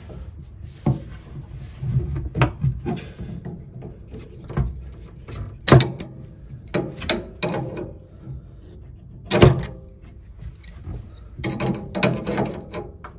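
Steel wrenches clinking and scraping against the brass pipe fittings under a combi boiler as they are set on a fitting to work it loose. There are irregular sharp metallic clanks, the loudest about six and nine and a half seconds in, and a cluster near the end.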